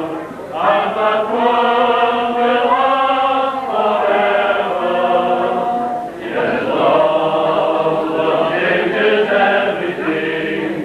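Male voice choir singing in harmony, the chords held and changing every second or so, with short breaks for breath about half a second in and about six seconds in.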